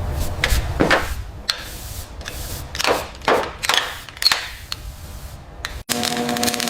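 An irregular series of sharp knocks and clicks over a low rumble, cutting off abruptly near the end.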